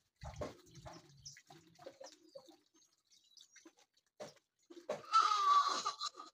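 Water poured from a plastic cup over a person's hands, splashing into a plastic bucket. Faint small clatters come first, then a louder splashing pour for about a second near the end.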